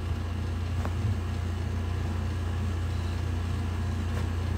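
A steady low hum with a light hiss, and a faint click about a second in and another near the end.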